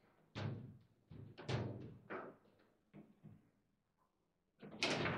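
Table football play: the ball struck by the rod figures and the rods knocking against the table, a series of sharp knocks with a brief lull and then a louder cluster near the end.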